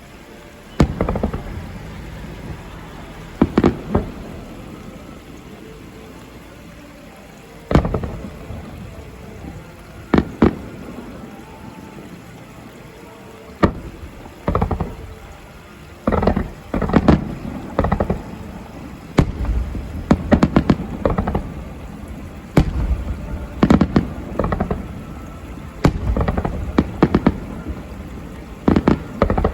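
Aerial fireworks shells bursting, sharp booms each followed by a rumbling echo. They come singly or in pairs every few seconds at first, then come thick and fast, several a second, through the second half.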